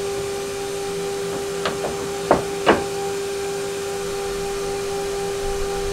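A board and clamps knocking against the CNC machine's table four times in quick succession while the board is clamped back down. Under them a motor hums steadily at one constant pitch.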